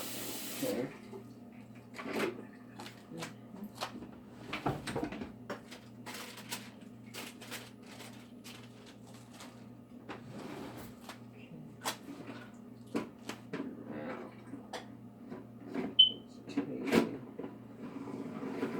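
Running kitchen tap shut off, followed by scattered clicks, knocks and clatter of kitchen things being handled and set down, with a brief high squeak about sixteen seconds in.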